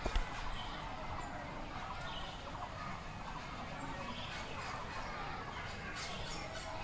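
Classroom ambience heard from outside: a steady babble of distant children's voices and chatter, with a few short sharp clicks about six seconds in.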